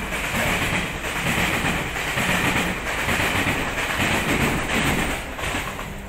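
Passenger train passing close by, a loud, steady rush of wheels on the rails that eases off near the end.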